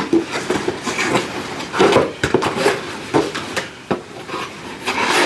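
Cardboard box being opened by hand: irregular rustling, scraping and knocks of the cardboard flaps and packing.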